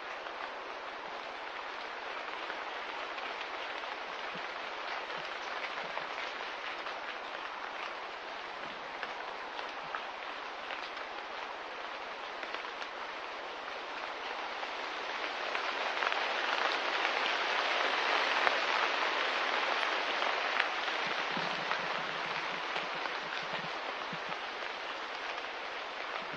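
Steady rain patter, a dense hiss of small drop ticks, swelling louder for several seconds past the middle and then easing back.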